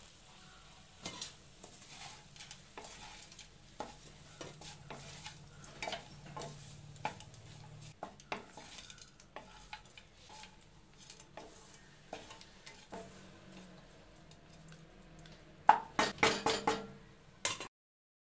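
A spatula stirs and turns cooked rice in a non-stick kadai, with irregular scrapes and soft knocks against the pan. Near the end comes a quick run of louder knocks on the pan, and then the sound cuts off.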